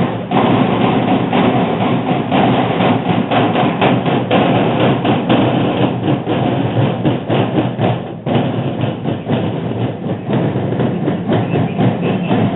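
A corps of naval parade snare drums beating a rapid marching cadence at close range, dense with sharp strikes.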